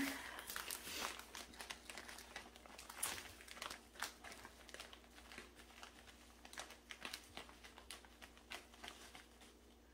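Plastic bag of brown sugar crinkling and rustling in the hand as sugar is poured from it into a measuring cup: faint, irregular crackles and ticks.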